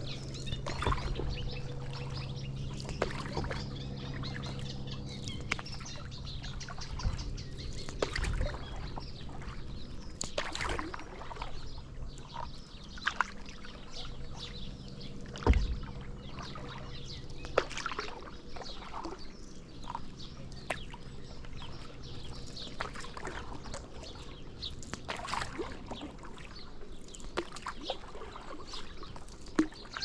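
Paddle strokes splashing and dripping water beside a stand-up paddle board, with birds chirping. A steady low hum runs through the first half and fades, and a single sharp knock comes about halfway through.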